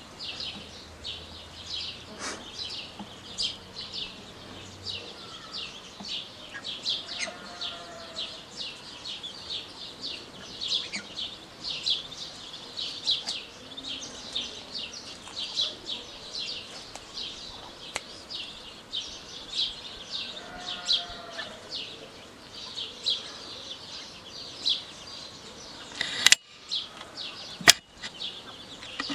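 Constant rapid high-pitched chirping, two or three chirps a second, with a short lower call twice and two sharp clicks near the end.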